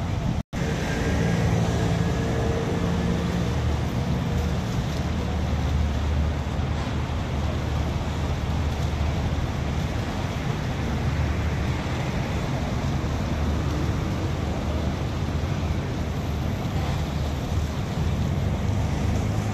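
Steady city traffic noise, a low rumble of passing cars with an even hiss over it. The sound cuts out for an instant about half a second in.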